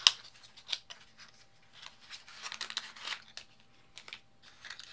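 Small cardboard box being opened by hand: a sharp snap as the tucked flap comes free, then scraping and rustling of the thin card and a crinkling plastic bag being drawn out, with a few light clicks near the end.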